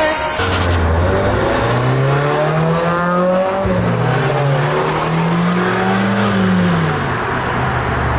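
Honda Civic's engine accelerating hard through the gears. The note climbs, drops sharply at a gear change about three and a half seconds in, climbs again, and falls away near the end as the throttle is lifted.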